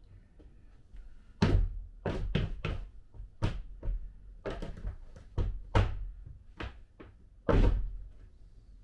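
A dozen or so irregular heavy thumps as a foot presses and stamps down on a toilet flange plate on a shower pan, forcing a dry-fitted PVC drain pipe down through the hole in a plywood floor; the first and last thumps are the loudest.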